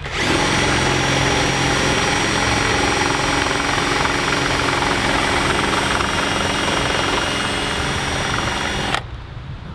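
Cordless drill running steadily at one speed for about nine seconds, its bit driven into a rusted screw in a plastic number-plate mount to drill it out, then stopping abruptly.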